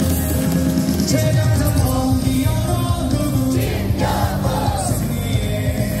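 Stadium loudspeakers playing a team cheer song at a baseball game, with the crowd singing along.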